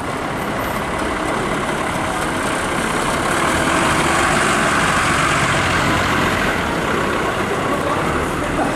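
Iveco Magirus fire truck's diesel engine running as the truck drives slowly past with its siren off. The engine and tyre noise builds to its loudest about halfway through and then eases a little.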